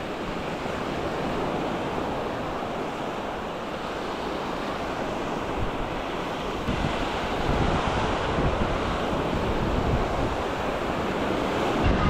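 Small waves washing onto a sandy shore, with wind buffeting the microphone; the low wind rumble grows stronger about two-thirds of the way through.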